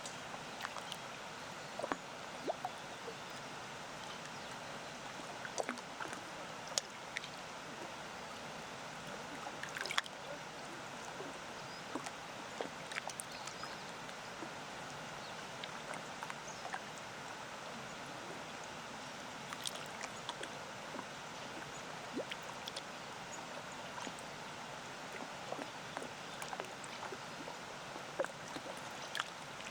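Small waves lapping at a lakeshore: a steady run of light, irregular splashes and plops over the even rush of a distant waterfall.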